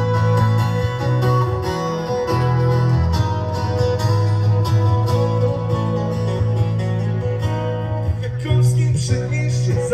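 Band music led by guitar over a steady bass, with a voice singing near the end.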